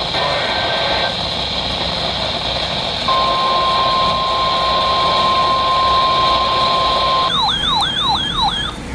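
Emergency alert tones from a weather radio. After a few seconds of hiss, a steady single-pitch alert tone begins about three seconds in; this fits the NOAA Weather Radio 1050-hertz warning alarm, which signals that a warning is being issued. Near the end it gives way to a fast siren-like warble that sweeps up and down about three times a second.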